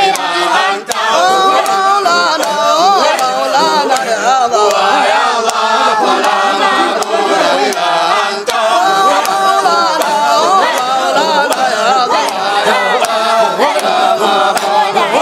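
Group of men chanting Sufi dhikr together, a loud, continuous call-and-response chant of many voices with a wavering melody.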